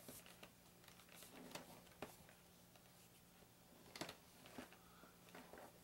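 Near silence, with a few faint taps and scrapes from a small cardboard box being handled and turned over in the hands, the clearest about four seconds in, over a low steady hum.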